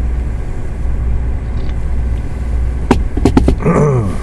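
Steady low rumble of an idling truck engine heard inside the cab. About three seconds in come a few sharp clicks, followed near the end by a short falling vocal sound from a man.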